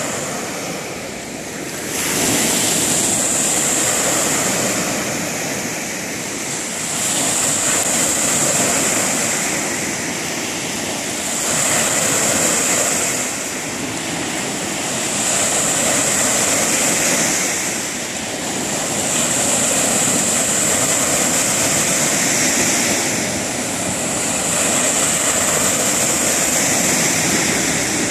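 Lake Ontario surf breaking and washing up on a sand beach, swelling and easing about every four to five seconds.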